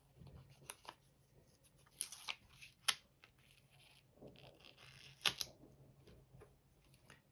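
Faint rustling and crackling of a holographic self-adhesive vinyl sticker being peeled from its backing and pressed onto a glass sheet, with a few sharp ticks, the loudest about three and five seconds in.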